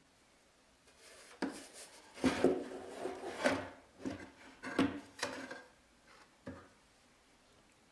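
A series of knocks and scraping, rubbing sounds of wood and hardware being handled: the BOSS Katana 50 Mk II amp's cabinet and speaker being worked on during a speaker swap. They start about a second in, are loudest in the middle and end with a single knock near the end.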